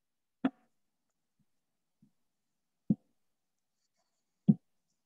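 Near silence broken by three short, soft thumps, about a second and a half apart.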